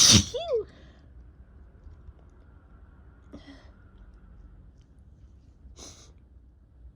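A person sneezing once, loudly, at the start: a voiced cry falling in pitch with a short vocal tail. A sneeze of spring allergies. Two short, quiet breaths follow later.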